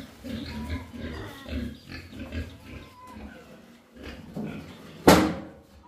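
Pigs grunting again and again, then a sudden loud bang about five seconds in.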